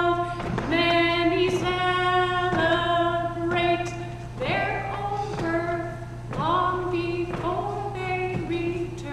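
A woman singing unaccompanied: a slow melody of long held notes, some of them slid up into, over a steady low hum.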